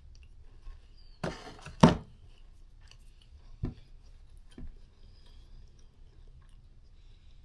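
Close-up eating sounds: a bite into a soft cookie and chewing, with a short crunchy rustle followed by one sharp crack, the loudest sound, about two seconds in, then a couple of softer clicks.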